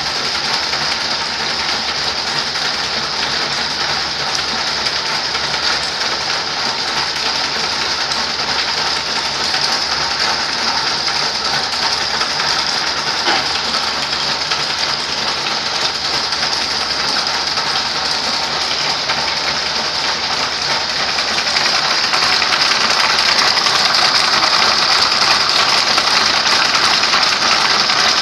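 A 24-spindle high-speed wire braiding machine running, its spindles clattering in a dense, steady mechanical rattle with a bright high hiss. It grows louder for the last several seconds.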